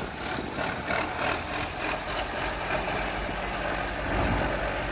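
Large John Deere tractor engine running steadily as the tractor drives slowly past.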